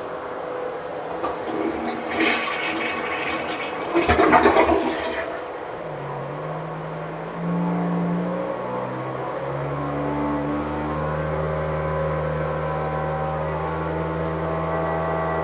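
Toilet flushing with a rush of water that surges twice, then giving way after about six seconds to a steady low humming drone that shifts pitch a few times before settling: the weird noise the toilet makes.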